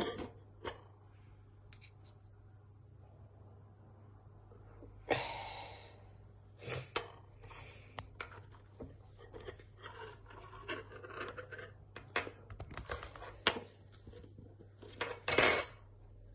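Handling sounds from working a sticky honey-and-spice paste in a dish: scattered small clicks, scrapes and rustles. Two louder noisy swishes come about five seconds in and near the end.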